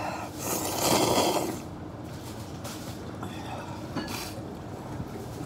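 A person slurping ramen noodles: one long slurp about half a second in, and a shorter one about four seconds in.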